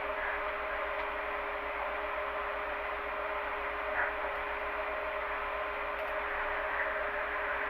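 Refrigerator hum: a steady drone of even hiss with a couple of constant tones and a fine low pulsing underneath. A faint brief tick about four seconds in.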